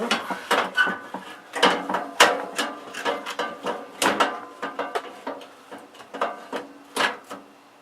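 A power supply being screwed to a computer case by hand with a screwdriver: an irregular run of small metallic clicks and knocks, some briefly ringing, as the screws are turned in.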